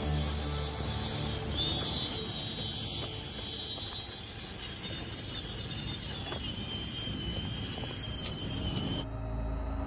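Electric RC crawler trucks driving over a dirt trail: a high-pitched motor and gear whine that steps and drifts in pitch as they move, with louder drivetrain and tyre noise about two to four seconds in.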